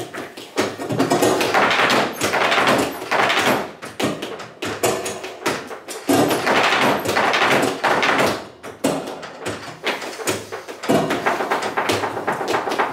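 Flamenco footwork (zapateado): a dancer's shoes stamping and tapping on the floor in three rapid runs with short lulls between, with hand-clapping (palmas) alongside.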